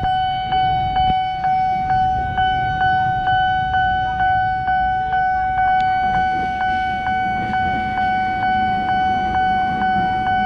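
Railroad level-crossing warning bell striking about twice a second, each strike ringing into the next as one steady high tone, sounding while the barrier is down for an approaching train. A low rumble of vehicles sits underneath.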